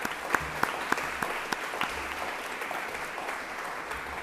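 Audience applauding, with sharp individual claps standing out in the first second or so, then easing into steadier clapping.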